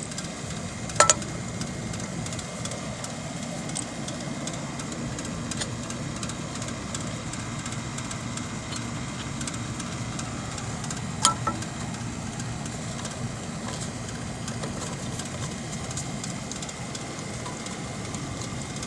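Two sharp metallic taps, about a second in and about eleven seconds in, from a hammer on a blower pulley seized to its motor shaft, the second ringing briefly. A steady mechanical hum runs underneath.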